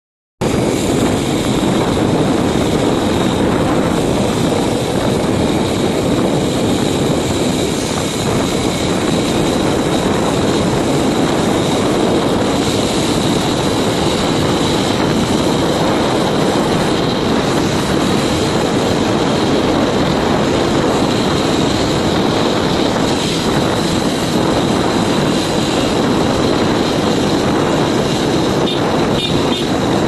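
Loud, steady rush of wind over the microphone mixed with the drone of a motorbike's engine while riding along a road. It cuts in abruptly right at the start.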